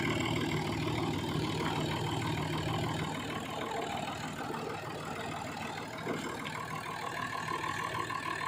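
Vehicle engine running steadily at idle, its low hum dropping away about three seconds in.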